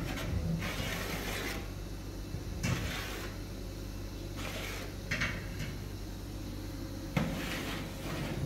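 Several short bursts of handling noise, things being moved about, with a sharp knock about seven seconds in, over a low steady hum.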